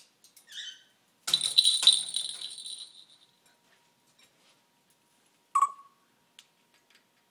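A short squeaky call from an African grey parrot, then a loud metallic jingle that rings for about a second and a half, and one sharp click near the end.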